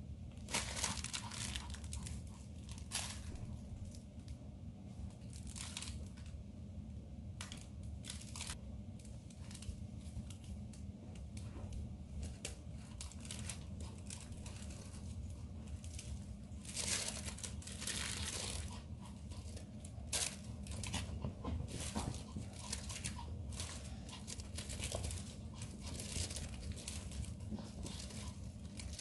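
Rustling and scuffling from a Shih Tzu puppy's play with a plush toy on a rug: a string of short, scratchy bursts, busiest a little past the middle, over a steady low hum.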